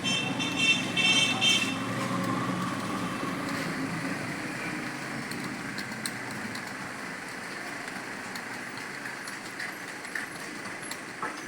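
Steady road-traffic noise with a high vehicle horn sounding for about a second and a half at the start. A few faint clicks from the keyboard of the ongoing typing test come through in the second half.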